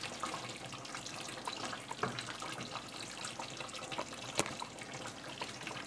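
Stew simmering in a steel pot on a gas stove, cooked down until its oil has separated: a low, steady bubbling sizzle with scattered small ticks, and one sharp metal clink about four and a half seconds in as the spoon serves from the pot.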